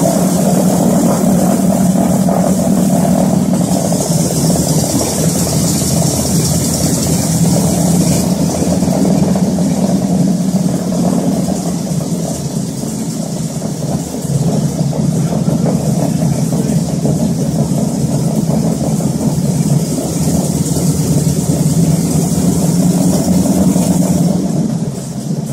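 Ford Trimotor's radial engines running at high power, heard from inside the cabin as the plane rolls for takeoff: a loud, steady, deep engine drone with propeller noise. It eases slightly about halfway through and builds again.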